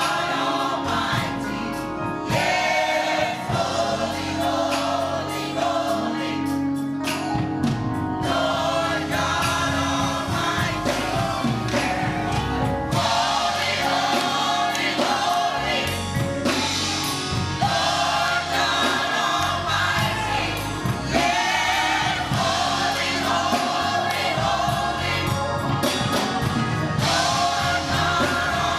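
Gospel choir singing with instrumental accompaniment: many voices together over sustained keyboard tones and a steady beat.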